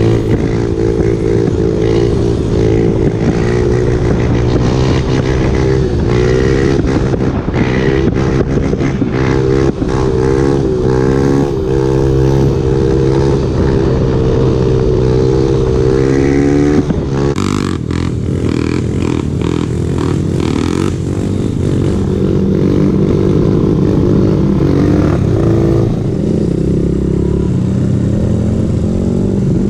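2003 Kawasaki KLX110 pit bike with a 143cc big-bore kit, its single-cylinder four-stroke engine running hard under the rider. Its pitch climbs and drops back several times as it revs out and shifts up through the gears. From about two-thirds of the way in it runs lower and steadier.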